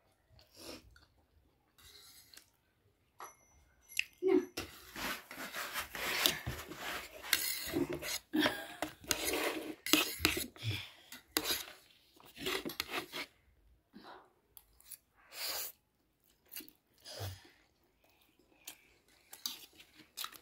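Cutlery scraping and clinking against plates while people eat noodles. The strokes come thick and fast for several seconds in the middle, then turn to scattered clinks.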